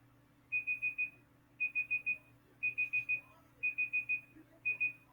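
A countdown timer's alarm going off as its time runs out: a high electronic beep in quick groups of four, the groups coming about once a second, five times over.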